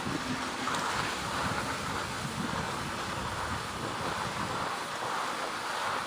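Steady rushing noise of wind on the microphone together with skis sliding over packed snow while being towed up a button drag lift.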